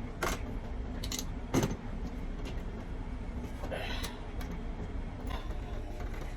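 Light metallic clicks and clinks of parts or tools being handled, three sharp ones in the first two seconds, over a steady low rumble.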